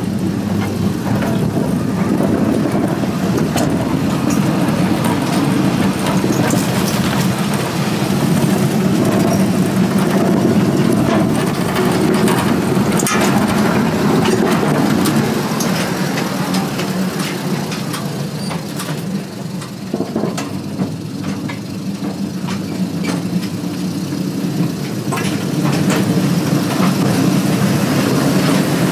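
Amusement-park miniature train running along its track: a steady rumble with scattered clicks of the wheels on the rails.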